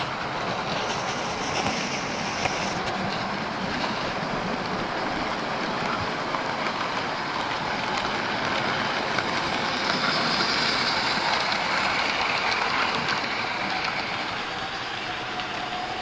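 Model trains running on a layout: a steady rolling noise with frequent small clicks of wheels on the track, growing louder about ten seconds in and easing off near the end.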